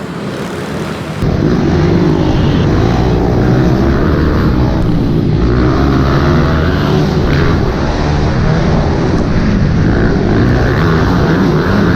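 Small pit bike engines revving hard as a pack of mini motocross bikes races. The sound jumps louder about a second in.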